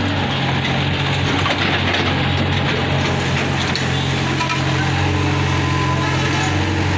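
Excavator's diesel engine running steadily under working load while the arm digs and dumps soil.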